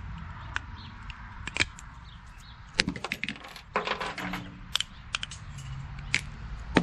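Scattered sharp clicks and light clinks of small hard parts and a tool being handled, bunched into quick flurries a few seconds in, as the reflectors are taken off a BMX pedal.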